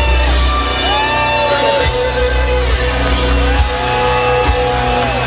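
Live rock band heard through a stadium PA from the crowd: a lead line of long held notes that slide into and out of pitch over heavy bass, with some shouts from the audience.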